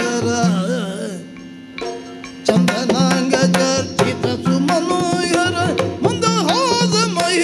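Yakshagana bhagavata singing with maddale drum strokes and small hand cymbals (tala) keeping time, over a steady drone. The drumming thins out briefly about a second in, then comes back strongly.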